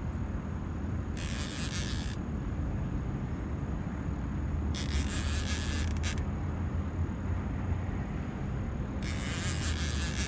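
Fishing reel buzzing in three short bursts about a second each, spaced a few seconds apart, as the angler works a heavy fish on a deeply bent rod. A steady low hum runs underneath.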